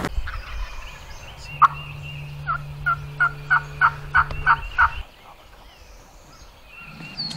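A turkey calling: a run of about nine short, evenly spaced notes at roughly three a second, preceded by a sharp click.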